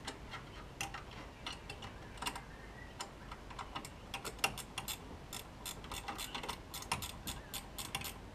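Faint, irregular metallic clicks and ticks from a hand tool working the fasteners on an external wastegate, coming more thickly after about four seconds.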